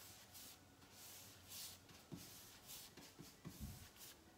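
Paintbrush stroking along the edge of a painted kitchen cabinet panel: a faint, dry swish about twice a second, with a few soft low thumps in the second half.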